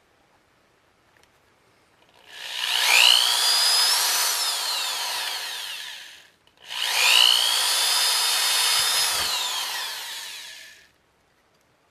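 Power drill boring holes through the thin sheet-steel wall of a tin can, in two runs of about four seconds each. In each run the motor whine rises as it spins up and falls as it winds down.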